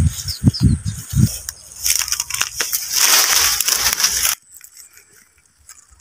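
Rustling and crackling of dry leaves and twigs handled close to the microphone, with low thumps of handling noise at first; the rustle cuts off abruptly about four seconds in.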